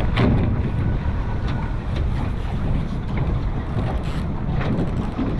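Wind buffeting the microphone on a salmon boat moving at trolling speed, over a steady low rumble of the boat and water.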